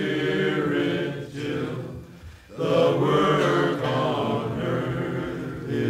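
A group of voices singing a slow worship song in long, held phrases, with a short breath-like pause about two seconds in.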